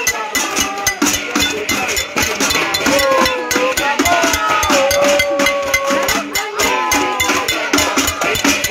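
Cooking pots and pans beaten rapidly and continuously, a dense metallic clanging in a protest casserolade, with a few held, wavering tones over it.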